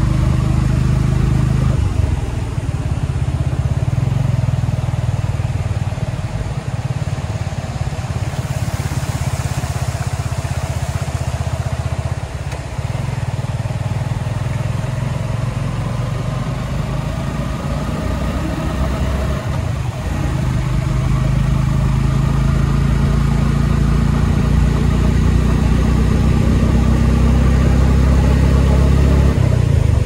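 A motorcycle engine running steadily under way. About two-thirds of the way in it gets louder and its pitch rises.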